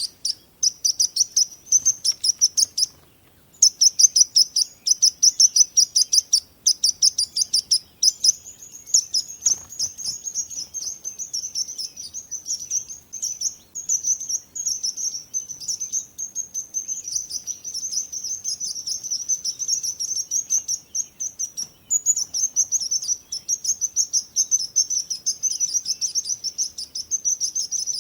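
Small birds chirping: rapid, high-pitched tweets repeating many times a second, broken only by a short pause about three seconds in.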